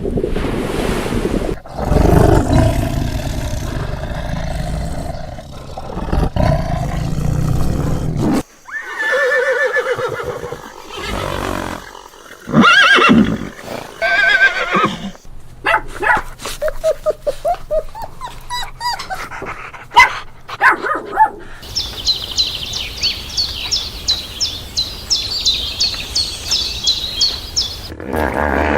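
A run of different animal calls one after another: a loud rough, low sound for the first several seconds, then pitched calls and a string of short calls over a steady low hum, and rapid high-pitched chirping for the last six seconds or so.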